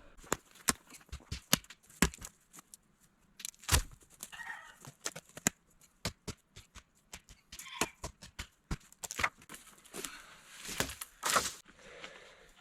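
Irregular woody cracks, snaps and knocks with bursts of rustling, as thorny Devil's walking stick stems are cut and handled for fort braces. The loudest knocks come at about 2, 4, 9 and 11 seconds in.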